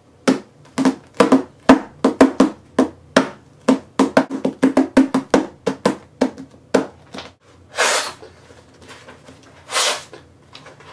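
Hands drumming on a thick paperback book, a quick rhythmic run of sharp taps played as percussion. About eight seconds in the tapping stops and three longer swishing noises follow, the last near the end.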